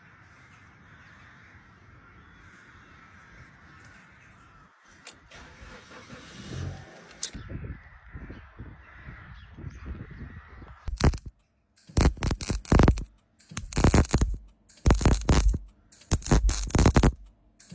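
A faint steady hiss. From about eleven seconds in come a series of loud, crackling welding bursts, each about a second long, repeating every second or so as the ignition lock mount on the Lexmoto 50 scooter is tack-welded.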